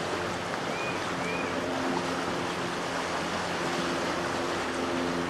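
Rushing water of creek rapids: a steady, even wash. A faint low hum runs under it, and two short high chirps come about a second in.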